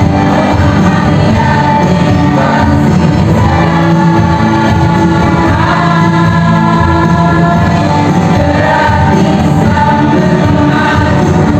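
A small women's choir singing in harmony, with long held notes.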